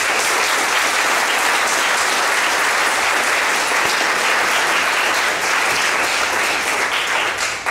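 Audience in a lecture room applauding, steady clapping that starts abruptly and dies away near the end.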